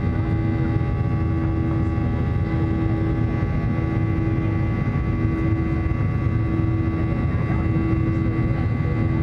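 Cabin noise of a Boeing 737-800 climbing out after takeoff, heard from a seat beside the wing: the CFM56-7B turbofan engines running at climb power as a steady low rush with several steady whining tones over it.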